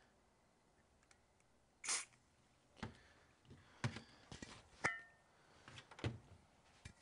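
A brief spray from an aerosol can of WD-40 white lithium grease about two seconds in, then several light knocks and clinks as steel 1 lb propane cylinders are handled on a workbench, one giving a short metallic ring.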